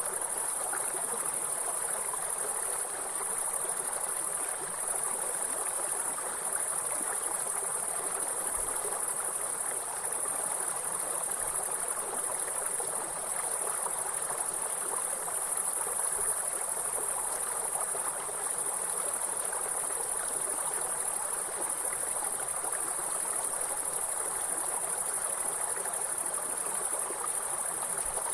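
Grasshoppers chirring in a continuous high-pitched buzz over the steady sound of a flowing river.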